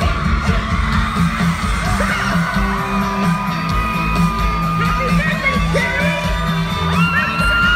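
Live pop concert heard from within the audience: loud music over a heavy, pulsing bass, with fans whooping and singing along.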